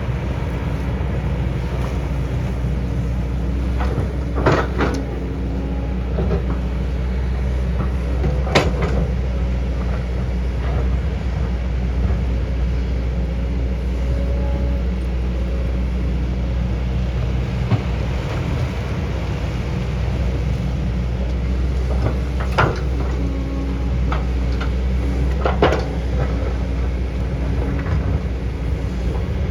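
Excavator's diesel engine running steadily under load, with a few sharp metallic clanks and scrapes from the bucket working rock, the loudest about 4, 9, 22 and 26 seconds in.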